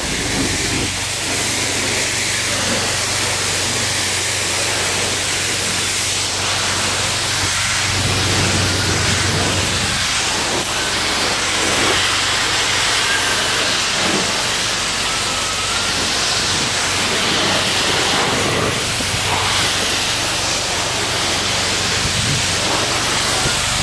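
Self-serve car wash high-pressure wand spraying water onto a car's body, a steady loud hiss with a low hum beneath it.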